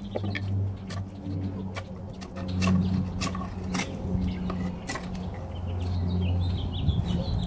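Carbon-steel bushcraft knife whittling a thick stick of wood: irregular short, sharp cuts and scrapes as the blade bites and shaves. A steady low hum runs under them.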